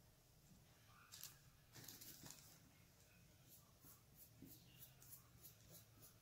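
Faint scratching of a small paintbrush dabbing paint onto a rock: a couple of brief rustles in the first half, then a quick run of short strokes, about four a second.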